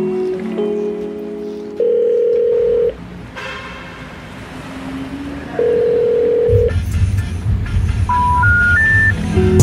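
Background music: short melodic notes, two long held tones, a deep low layer coming in about two-thirds of the way through, and near the end three short beeps stepping up in pitch.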